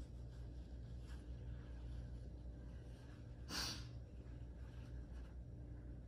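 A person's faint breathing with one short, sharp breath about three and a half seconds in, over a steady low hum.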